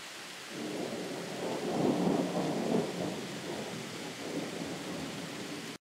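Distant thunder: a low rumble swells in about half a second in, is loudest around two seconds in, then rolls on more softly over a steady hiss until the audio cuts off abruptly near the end.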